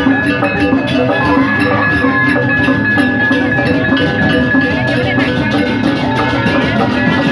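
Balinese gamelan playing: struck bronze metallophones and gongs ringing steadily over a dense beat of drums and percussion.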